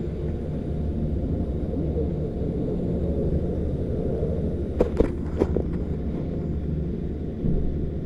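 Chairlift station machinery running with a steady low rumble, and three sharp clacks about five seconds in as the chair passes through.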